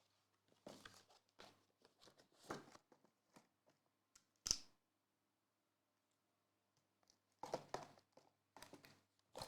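Trading card packaging being handled and opened, heard faintly: short bursts of crinkling and tearing, with one sharp click about four and a half seconds in and a lull of about two seconds after it.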